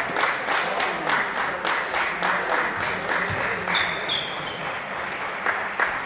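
A small crowd of spectators clapping, a steady patter of claps at about three to four a second, with a short high squeak about four seconds in.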